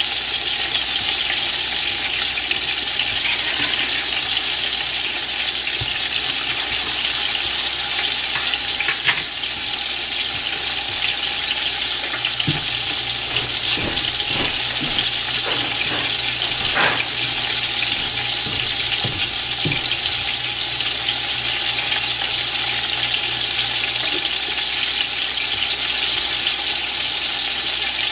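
Chicken pieces frying in a skillet under a glass lid, a steady loud sizzle, with a few faint pops or taps partway through.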